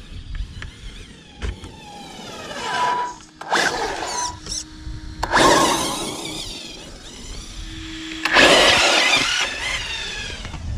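ZD Racing Pirates 3 electric RC buggy's brushless motor and drivetrain whining as it is throttled up and off, the pitch falling and rising. There are three loud bursts of acceleration, the last and loudest about eight seconds in.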